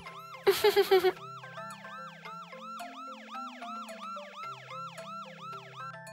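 Cartoon fire truck siren sound effect, a fast up-and-down wail cycling about three times a second, over the stepping bass line of background music. About half a second in, a loud stuttering burst lasts about half a second.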